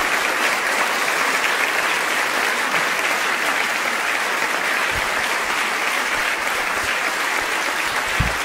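Crowd applauding steadily, a continuous even clapping.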